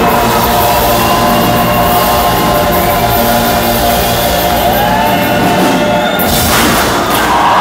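Live band and choir playing and singing the closing held chords of a song in a large hall. The bass drops away about five seconds in, a sudden burst of noise follows a second or so later, and crowd cheering begins at the very end.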